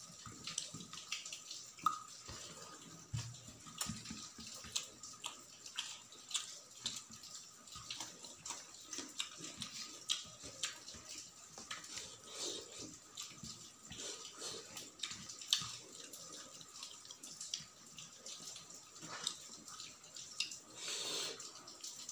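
Close-miked wet eating sounds: chewing and lip smacking on rice with chutney and curry, and fingers squishing and mixing the rice on a steel plate. Short, irregular clicks and smacks follow one another throughout.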